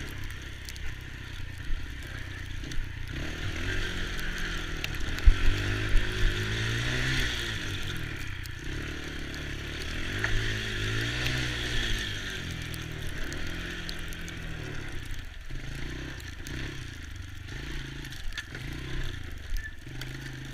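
Small youth ATV engine running, its pitch rising and falling as the throttle is opened and eased off. A few sharp knocks come about five seconds in, and near the end the engine swells and drops about once a second.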